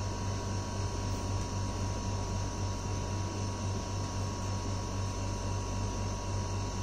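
Steady low hum with an even hiss and a faint high steady tone, unchanging throughout; no handling or other sounds stand out.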